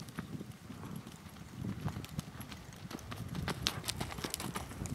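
Hoofbeats of a paint gelding loping on a sand arena: dull thuds in an uneven rhythm that grow louder as the horse comes close, with sharp clicks over the top.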